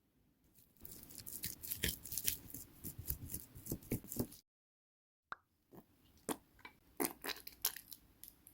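Kitchen food preparation with a knife on a cutting board: a quick run of sharp taps and crunchy cuts, broken off abruptly by a moment of silence, then more scattered taps.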